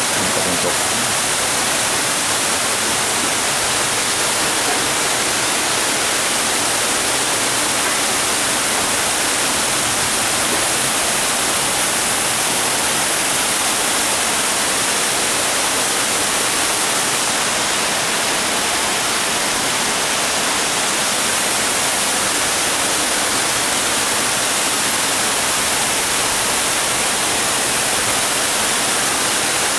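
Tall man-made indoor waterfall pouring down a planted tower: a steady, unbroken rush of falling water.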